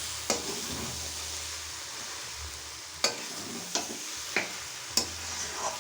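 Cabbage and minced chicken sizzling in a pan over a medium flame while a spatula stirs and mixes it, knocking against the pan every second or so.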